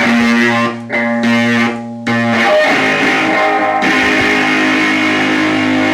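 Electric guitar music: a long held chord that changes to a second held chord about two and a half seconds in.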